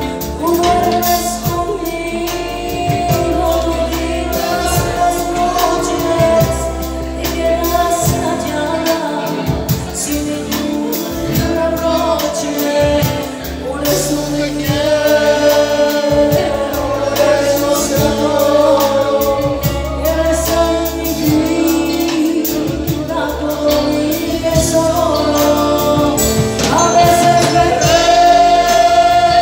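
A woman singing a romantic ballad live into a microphone, backed by a small band on guitar and keyboard.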